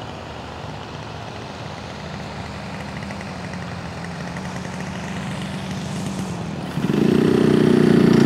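Radio-controlled aerobatic model plane's engine running as it comes in to land. It grows slowly louder as the plane nears, then turns much louder and fuller about seven seconds in, as the plane touches down and rolls along the runway.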